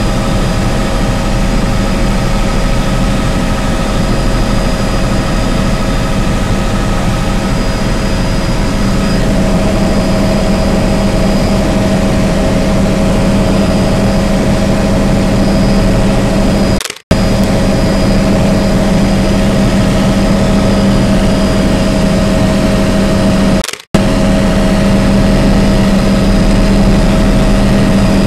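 Helicopter cabin noise in flight: the steady, loud drone of engine and rotors with several steady whining tones running through it. The sound cuts out for an instant twice in the second half.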